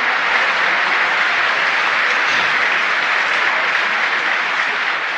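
Steady applause from a crowd.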